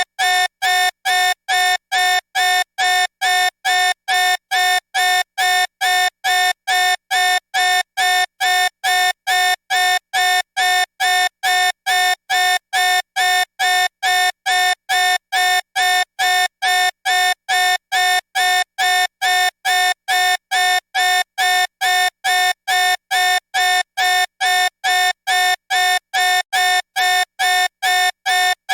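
Electronic warning beeper sounding fast: identical short beeps, about three a second, each a steady buzzy mid-pitched tone, repeating without change.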